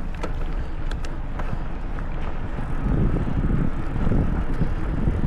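Wind buffeting the microphone of an Insta360 X4 camera on a moving mountain bike, a steady low rumble with a few sharp ticks in the first second and a half.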